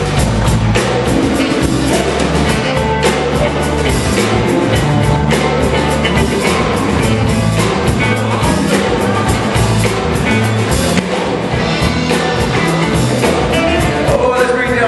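Live blues-rock band playing: drum kit with steady regular strokes over electric bass and guitar. A saxophone line rises in near the end.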